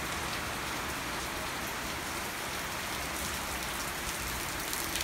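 Heavy tropical rain falling steadily, a dense even hiss, with a few sharper ticks near the end.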